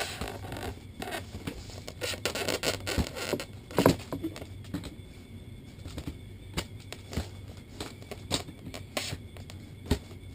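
Irregular clicks, knocks and scraping as the CYMA ZM51 airsoft sniper rifle is handled and pushed into its stock, with one louder knock about four seconds in. The stock is not seating.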